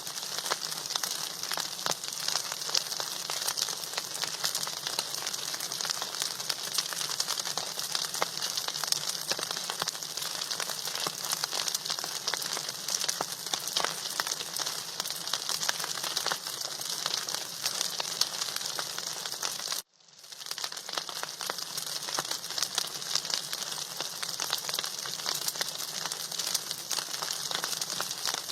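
Food sizzling and crackling in hot oil in a pan, a steady dense hiss of small pops. About two-thirds of the way through it cuts out for an instant and then carries on.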